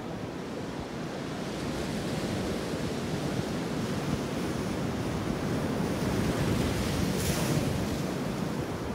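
Sea waves washing against a rocky shore, with wind buffeting the microphone. The surf grows louder after a couple of seconds, and a wave breaks with a hiss about seven seconds in.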